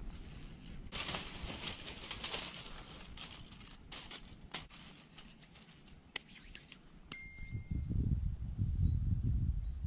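Lumps of charcoal poured out of a plastic bag onto foil: the bag crinkles and the charcoal clatters for a couple of seconds, followed by a few single knocks of lumps. Near the end a loud low rumble takes over.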